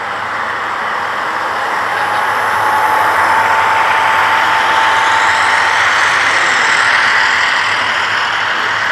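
HO-scale model freight train passing close by: the running noise of its diesel locomotives and the metal wheels rolling over the rails, growing louder as it comes near. A thin steady whine sounds for a few seconds while the locomotives go by.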